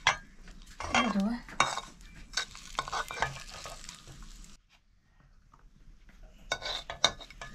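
A metal utensil stirring and scraping in a cooking pot, with clinks against the metal, pausing briefly about halfway.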